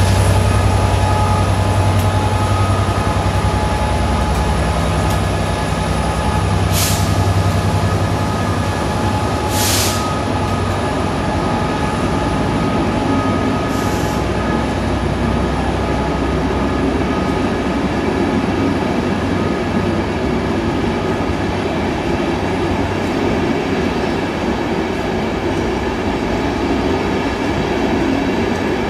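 Class 67 diesel locomotive's two-stroke V12 engine running as it hauls a rake of Mark 4 coaches past, its low engine note fading over the first ten or so seconds. The rumble and rolling of the coaches' wheels over the rails carries on, with three short high hissing sounds in the first half.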